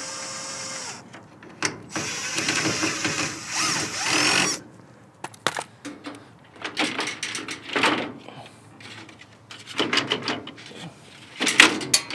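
Cordless drill whirring as it backs out a grille screw, stopping about a second in. Then knocking, rattling and scraping as the old cracked plastic grille is worked loose by hand and pulled out, with a brief squeak about four seconds in and a cluster of knocks near the end.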